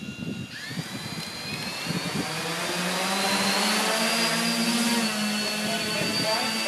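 X8 coaxial octocopter's electric motors and propellers spinning up from about half a second in with a rising whine, then running steadily with a whirring hum and high whine as the drone lifts off and hovers.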